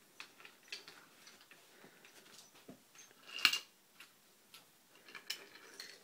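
Wooden toy trains and track pieces clicking and clacking as they are pushed and handled, in a loose string of light taps with one louder clack about three and a half seconds in.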